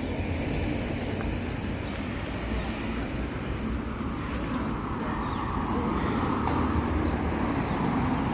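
Street traffic noise, a steady hiss of cars, with a car swelling louder as it passes close near the end.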